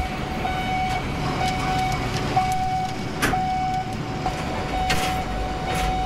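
Container quay crane machinery running: a steady mechanical rumble with a steady high tone over it, and one sharp click about three seconds in.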